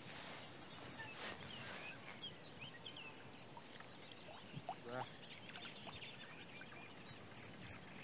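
Faint birdsong: scattered short chirps and calls from small birds over a low, steady outdoor background hiss.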